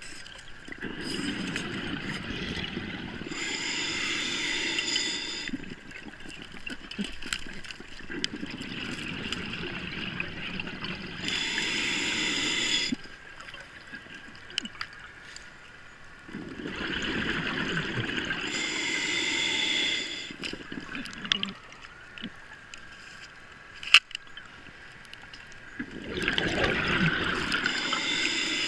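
Diver breathing underwater through a scuba regulator: hissing inhalations alternating with gurgling bursts of exhaled bubbles, about every seven to eight seconds. A single sharp click about three quarters of the way through.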